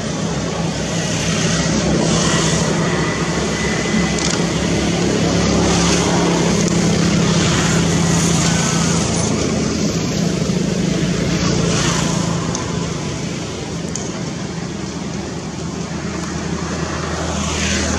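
A motor vehicle engine running steadily with road traffic noise, swelling through the middle and easing off toward the end.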